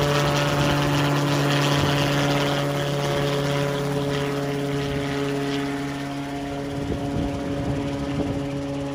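Small helicopter climbing away after takeoff: a steady rotor and engine hum that slowly fades as it flies off.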